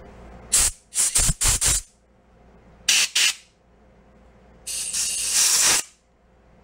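Compressed-air blow gun blasting through the carburetor passages of an old Honda 50 mini bike to clear clogged ports and jets. There are several short hissing blasts in the first two seconds, another around three seconds in, and a longer blast of about a second near the end.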